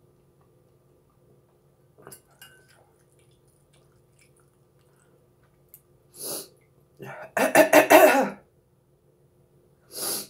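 A woman coughing in a quick fit of five or six coughs in about a second, the loudest sound here, with a short sharp breath or sniff shortly before it and another near the end. A few faint clicks come early.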